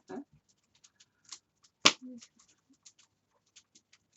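Wood fire crackling in an open fireplace: scattered small irregular pops and ticks, with one sharp, loud snap about two seconds in.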